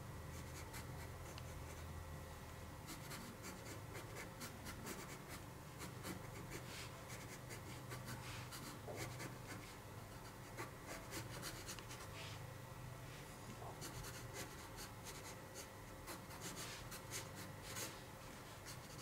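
Faint scratching of a wooden graphite pencil on paper in many short, quick sketching strokes.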